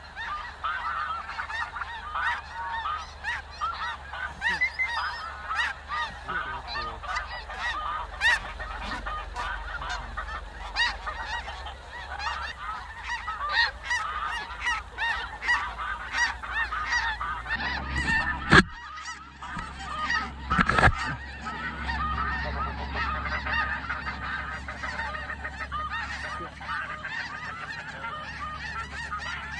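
A large flock of snow geese calling, many overlapping honks at once without a break. Past the middle, two sharp, sudden sounds about two seconds apart stand out above the calls.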